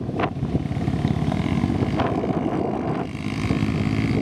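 Honda Tornado 250 dirt bike's single-cylinder four-stroke engine running as the bike rides across the sand, a steady engine note with fast firing pulses.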